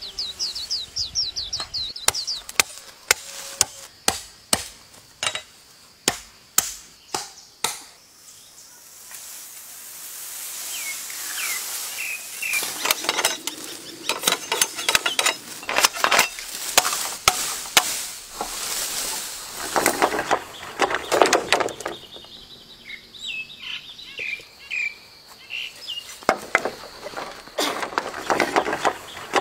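Green bamboo stalk being chopped: a run of sharp wooden blows, roughly two a second, for the first several seconds. Then the leafy cut bamboo rustles and swishes through the foliage as it comes down and is handled, with birds chirping, and a few more knocks near the end.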